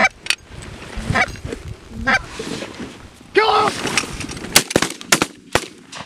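Canada geese honking as they come in, then a rapid volley of about five shotgun blasts in just over a second near the end.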